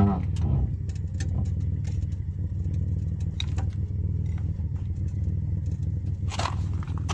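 An engine running steadily at idle, a low, even drone. There is a single knock about six seconds in.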